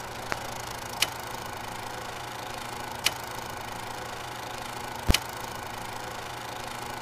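Old film projector sound effect: a steady mechanical whirr with a low hum and hiss, broken by a few sharp film pops at uneven intervals, the loudest about five seconds in.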